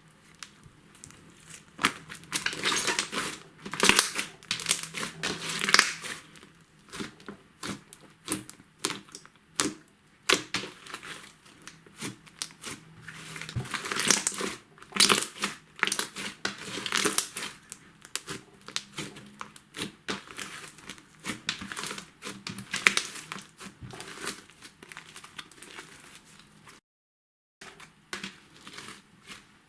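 Hands kneading and squishing white slime mixed with makeup and glitter, giving irregular runs of crackling, popping clicks. The sound breaks off for a moment near the end.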